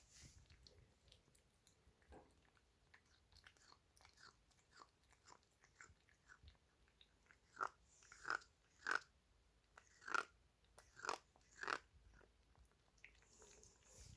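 A pet chewing food: a run of short crunching bites, faint at first, then about six louder crunches in quick succession past the middle. These are the strange noises Barney makes while eating.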